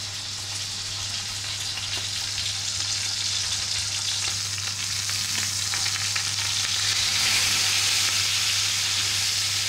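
Stuffed, string-tied rolled rabbit saddle searing in hot fat in a pan: a steady sizzle that grows gradually louder over the first seven seconds or so.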